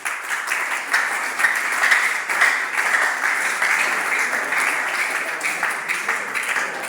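Audience of secondary-school students applauding loudly, a dense, sustained clapping.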